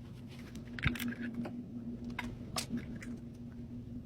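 Scattered light clicks and a brief rustle as Pokémon trading cards and packs are handled, over a steady low hum.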